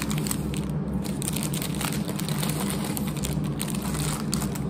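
Paper-wrapped takeaway lunch bag handled close to the microphone, crinkling and crackling in an irregular run, over a steady low hum.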